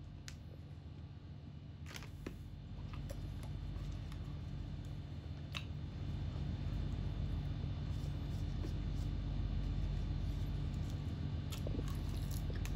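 Steady low hum with a few faint short clicks, growing a little louder about halfway through.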